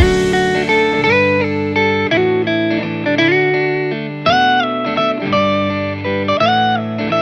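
Background music: a guitar playing a slow melody of held notes that bend up and down in pitch.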